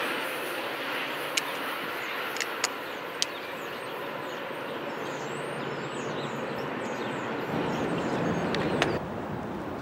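Train running past at the station: a steady rumble with a few sharp clicks, swelling slightly in the low end near the end.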